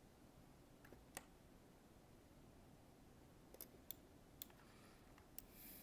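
About six faint, scattered clicks from a computer mouse and keyboard at a desk, over near-silent room tone, with a brief soft hiss just before the end.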